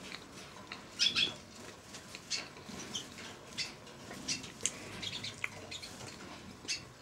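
Siskins in an aviary giving short, high chirps scattered throughout, the loudest a quick cluster about a second in.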